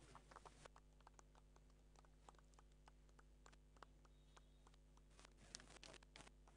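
Near silence: a low, steady electrical hum with faint scattered clicks, a few more of them about five seconds in.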